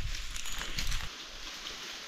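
Footsteps crunching over dry leaf litter, with a low rumble on the microphone; both stop about a second in.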